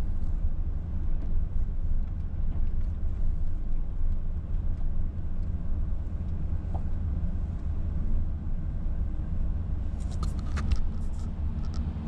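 Car driving slowly: a steady low rumble of engine and road noise heard from inside the cabin. A short run of sharp clicks comes near the end.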